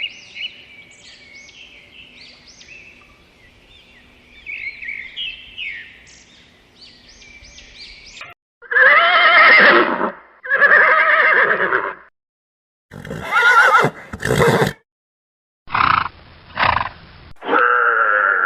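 Birds chirping and singing for about eight seconds, then a string of loud animal calls, each a second or two long, broken by abrupt cuts and short silences.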